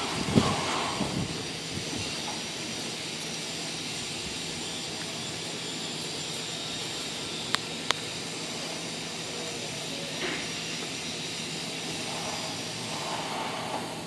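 Steady hiss of steam from Durango & Silverton No. 481, a K-36 narrow-gauge 2-8-2 steam locomotive, standing under steam on a turntable. A bump near the start and two sharp clicks about halfway through.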